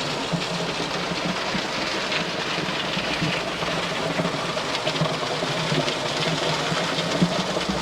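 Diesel engine of heavy site machinery running steadily under a dense, even wash of mechanical noise.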